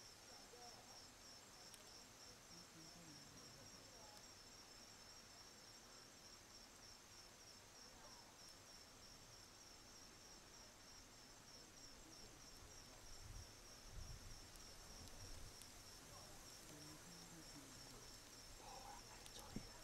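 Faint, high-pitched insect chirping that repeats at a rapid, even pulse over a quiet outdoor background hiss, with a few low rumbles about two-thirds of the way through.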